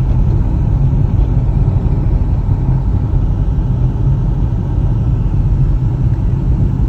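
Steady low rumble of a car driving, engine and road noise with no change in pace.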